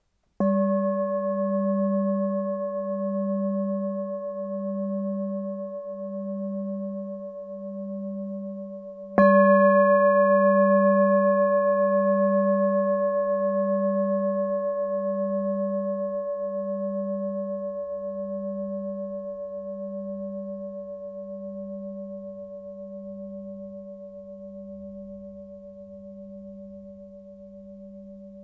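An 893-gram Tibetan singing bowl of seven-metal alloy, struck twice, about half a second in and again about 9 s in. Each strike rings on with a deep hum that slowly pulses, about once every second and a half, under clear higher overtones, and fades slowly.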